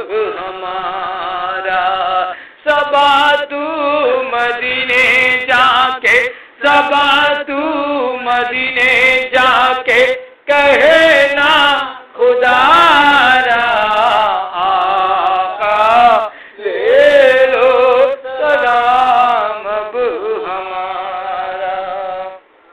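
A man chanting a devotional salam (naat) solo, in long melismatic phrases with short breaks between them.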